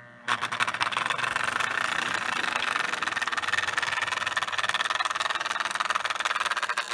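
Lionel 249 O-gauge toy steam locomotive's electric motor and gears running steadily as it pulls its tender around plastic-roadbed three-rail track: a continuous whirring hum with a fast, fine clicking from the wheels and gearing.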